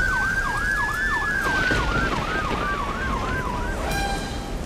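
Cartoon ambulance siren wailing fast up and down, about three cycles a second, with a second long tone that rises and then slowly falls. Both cut off shortly before the end, over a steady hiss.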